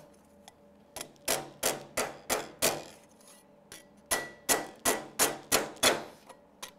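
Small hammer lightly tapping a thin welded sheet-metal panel against a bench vise that serves as a dolly, flattening areas warped by the welding. Two runs of quick taps, about three a second, with a short pause between them.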